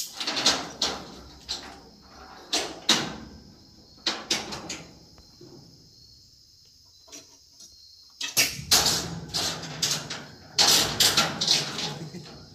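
Bursts of metallic clanking and rattling, each about a second long, with a quiet spell in the middle and a longer run near the end, from tie-downs being undone at the wheels of a flatbed car trailer. Crickets chirp steadily throughout.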